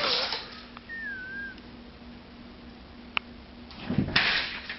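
A house cat playing on a wooden floor: scuffling and thumps of its paws and a batted toy, loudest at the start and again near the end. A faint, short, wavering squeak comes about a second in, and a faint steady hum runs underneath.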